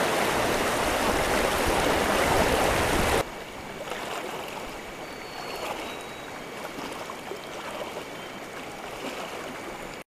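River rapids rushing loudly and steadily. The sound cuts off abruptly about three seconds in to a much quieter, softer flow of water.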